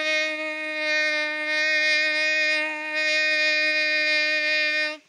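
Man imitating a train horn with his voice: one long, steady, buzzy note held without a break, cut off abruptly just before the end.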